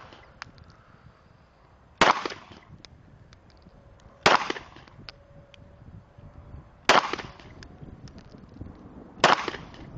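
Glock 17 9 mm pistol fired four single shots, about two to two and a half seconds apart. Each is a loud, sharp crack with a short echo trailing off.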